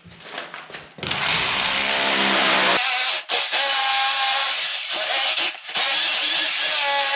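Angle grinder with a cutting disc running up to speed, then cutting into a steel reinforcing bar in concrete with a loud, steady high-pitched hiss and whine, dipping briefly a few times.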